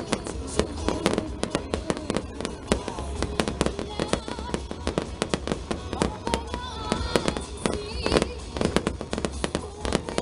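Aerial fireworks bursting in a rapid, continuous run of sharp bangs and crackles, several a second.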